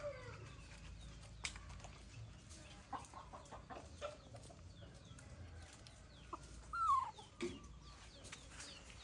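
A rooster in a wire cage clucking softly, giving a few short calls, the clearest about two-thirds of the way in. Light clicks and taps from the wire cage.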